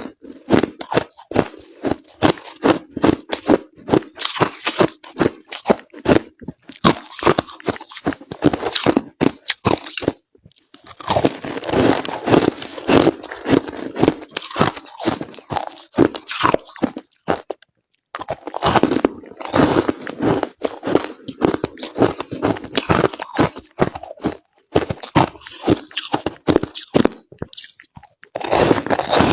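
Crushed ice being bitten and chewed close to the microphone: fast, loud runs of crunching with a few short pauses between mouthfuls.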